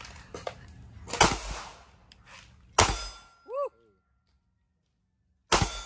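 Three 9mm pistol shots from a home-built P80 Glock 19-pattern pistol, each sharp crack trailing off in an echo; the shots come about a second and a half apart, then nearly three seconds apart.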